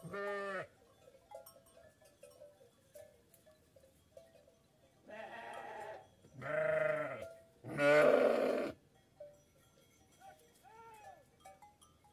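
Kangal sheep bleating in a flock: a short bleat at the start, then three bleats in quick succession around the middle, the last and loudest one longest, and a faint bleat near the end.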